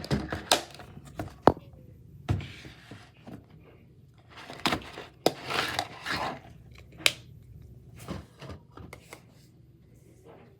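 Salt being poured out of its container for a slime recipe: short grainy rustles mixed with scattered taps and knocks of the container and spoon.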